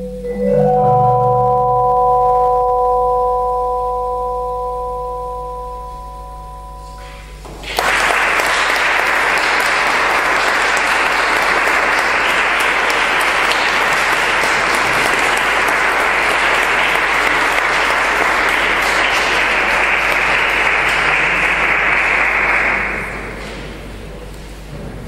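The last chord of a piece of live instrumental music rings and fades over several seconds. Then the audience breaks into applause, which lasts about fifteen seconds and dies away near the end.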